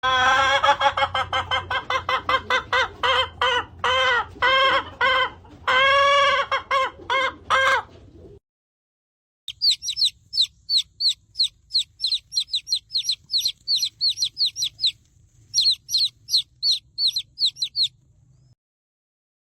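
Chicken sound effects. First a hen clucks in a quick series of pitched calls, some of them drawn out. After a short break, high thin peeps that fall in pitch follow in a rapid run, like chicks peeping.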